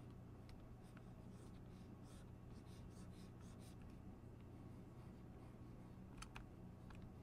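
Near silence: quiet room tone with a low steady hum and faint scratchy strokes from the retoucher's hand input while painting. A couple of soft clicks come about six seconds in.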